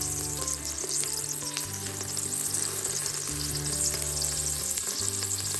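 Spices sizzling in hot ghee in an Instant Pot, a steady hiss with fine crackles, over background music with held low notes.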